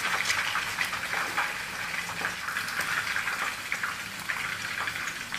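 Hot cooking oil in a wok sizzling steadily with a scatter of small crackling pops as crushed garlic deep-fries.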